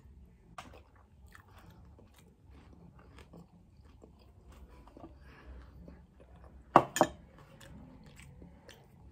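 Chewing a mouthful of cowboy caviar salad with olives: a quiet run of small crunches and mouth clicks. Two sharper clicks come close together about seven seconds in.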